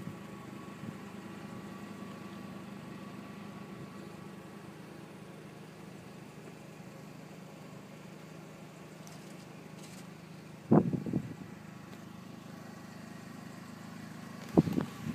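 Volkswagen New Beetle Cabriolet engine idling steadily, with a few short knocks about eleven seconds in and again near the end.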